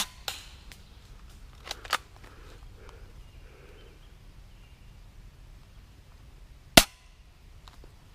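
Airsoft guns firing single shots as sharp cracks: one at the start with a weaker one just after, a pair about two seconds in, and the loudest shot near the end.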